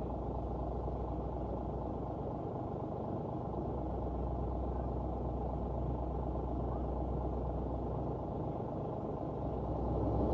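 Bus engine running steadily with a low hum, growing louder near the end.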